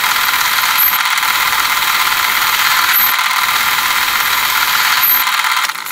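Metal lathe boring out a steel bore, the boring tool cutting with a steady hiss, with a short high squeak about every two seconds. The cut stops suddenly near the end, the bore left short of the end of the hole.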